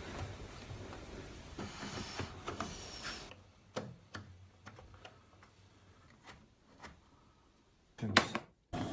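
Washing machine program selector dial being handled and turned, clicking through its positions: rustling handling noise for about three seconds, then a string of separate sharp clicks, and a louder knock near the end.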